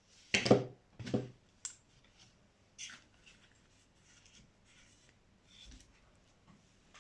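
Small plastic parts of a car's clock spring being handled and fitted together: two sharp clicks about half a second and a second in, then lighter ticks and soft rustling.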